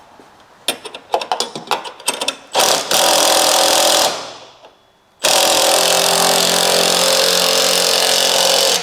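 Metal clinks of a nut, washer and bolt being handled. Then a power tool runs the nut up onto a bull bar mounting bolt in two runs: a short run of about a second and a half that winds down, and a longer run of about three and a half seconds that stops near the end.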